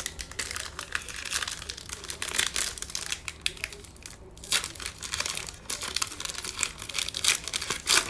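Trading-card pack wrapper crinkling and tearing as it is opened by hand, in two spells with a brief pause about four seconds in.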